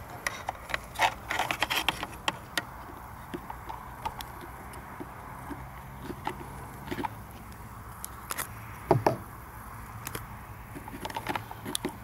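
Scattered plastic clicks, taps and light rattles from handling a Skoda Fabia hazard light switch, its wiring connector and the dashboard trim, coming in small clusters, loudest about a second in and about nine seconds in.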